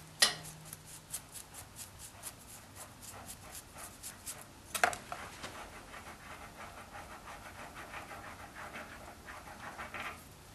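Metal-on-metal clicking and light rasping of a freshly machined steel die adapter nut being spun by hand off a threaded mandrel, ticking about four times a second, with a louder knock about five seconds in and softer ticking after it.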